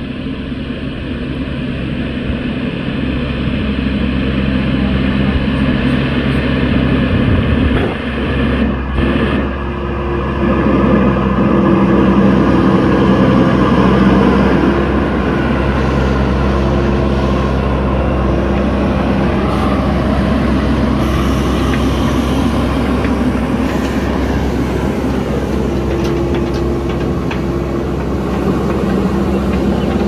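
JCB backhoe loader's diesel engine running steadily as the machine pushes a pile of soil with its front bucket. It grows louder as it approaches over the first dozen seconds, with a brief dip about eight seconds in.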